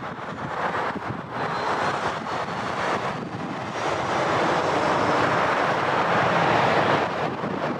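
Steady rush of freeway traffic and a passenger train rolling across an overpass, with wind on the microphone, growing louder about four seconds in.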